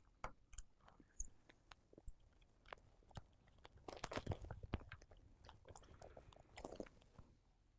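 Faint, irregular small clicks and scrapes of a precision screwdriver and small tools as tiny screws are put back into an iPhone 7 Plus's housing, with a busier cluster of ticks around the middle.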